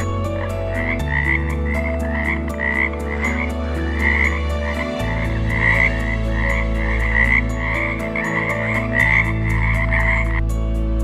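Frog croaking in a steady run of short calls, about three a second, stopping shortly before the end.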